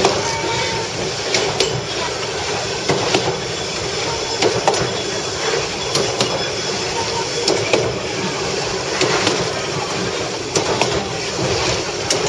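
Myanmar Railways railbus running along the track: a steady rumble and rattle of the moving car, with a knock from the wheels every second or so.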